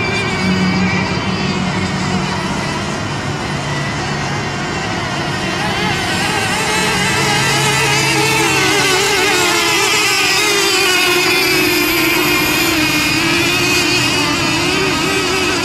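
Several radio-controlled racing boats' engines running at high speed together. Their overlapping high-pitched notes waver up and down as the boats race.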